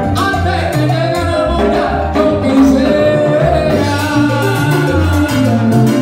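Live salsa band playing, with congas and timbales over a pulsing bass line and a trombone in the band.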